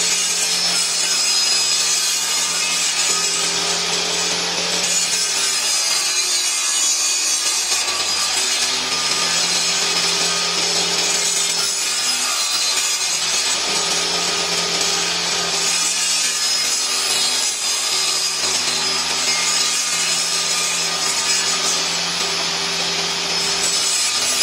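Table saw running steadily and cutting a small block of wood that is pushed through the blade on a sliding crosscut guide.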